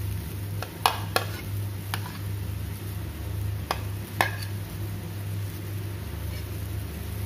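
A metal spatula knocks and scrapes against an aluminium wok about five times in the first half while fish in chilli sauce simmers, over a steady low hum.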